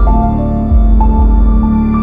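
Channel outro ident music: ambient-style music with held tones over a deep bass, entering loudly with a few note changes.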